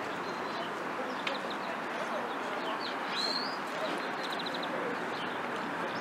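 Small songbirds chirping, with a quick trill of about five notes near the middle of the clip and a rising chirp a little after three seconds in, over a steady outdoor background rush.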